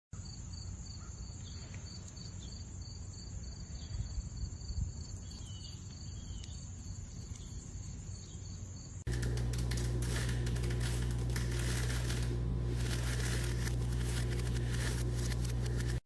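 Insects chirping: a pulsing high trill over a steady high whine, with a few faint clicks. About nine seconds in, this gives way abruptly to a louder steady low hum with fine crackling.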